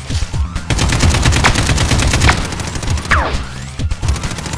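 Rapid automatic gunfire, a fast run of shots beginning just under a second in and lasting about two seconds, with a few falling whistling sweeps, over music with a heavy beat.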